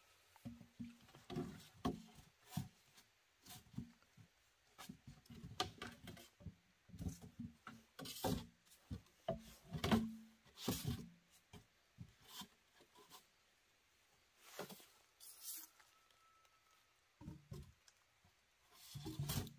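Irregular knocks and clatter from hands-on work, dense for the first half, thinning out past the middle and starting again near the end.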